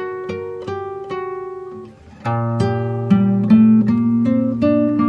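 Background music of acoustic guitar picking a melody; about two seconds in it dips briefly, then comes back louder and fuller with low held notes underneath.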